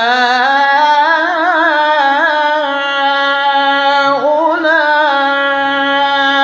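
A male Quran reciter's voice in melodic tajweed recitation, stretching one long unbroken note. It wavers through quick ornamental runs in the first half, dips briefly about four seconds in, then settles into a steady held tone.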